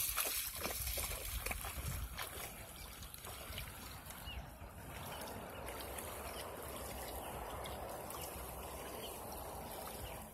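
Small splashes as a toddler's feet run and wade through shallow, calm water over the first few seconds, settling into a soft steady watery trickle and rush.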